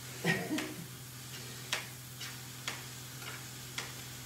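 Chef's knife dicing tomatoes on a plastic chopping board: short sharp knocks of the blade hitting the board, about two a second.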